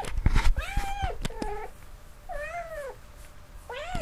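A cat meowing about four times, each meow rising and falling in pitch, with a few short knocks among the first two meows.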